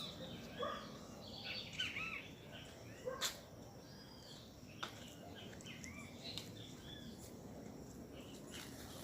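Several small birds chirping and singing, busiest in the first few seconds and sparser after, with a sharp click about three seconds in and another a little later.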